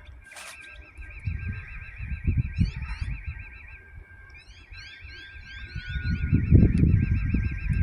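Wind gusting on the microphone in uneven low rumbles, strongest about six to seven seconds in, over a continuous high warbling tone that wobbles several times a second and runs of quick rising chirps.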